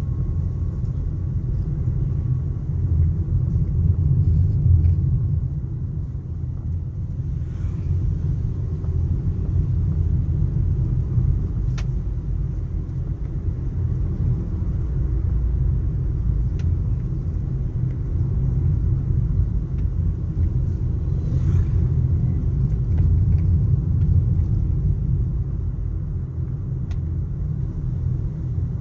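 Steady low rumble of a car driving on a paved road, heard from inside the car: engine and tyre noise, with a few faint clicks.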